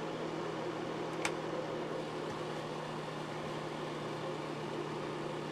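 Scovill NuTone Markel electric space heater running on its 750-watt low heat setting: its fan gives a steady hum and whoosh of moving air. A single light click about a second in.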